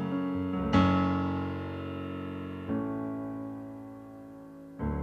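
Piano playing slow sustained chords as a song intro: one chord is struck about a second in, another near three seconds and a third near the end, each left to ring and fade.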